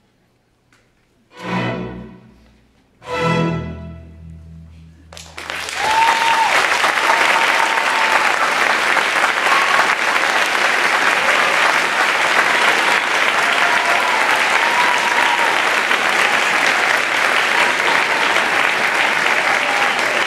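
A high school string orchestra plays two loud final chords about a second and a half apart, the second one held. About five seconds in, the audience breaks into steady applause.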